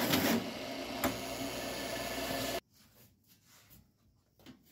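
Drill press running a hole saw through sheet steel, a steady whirring hiss with one click about a second in. It cuts off abruptly about two and a half seconds in, leaving near silence.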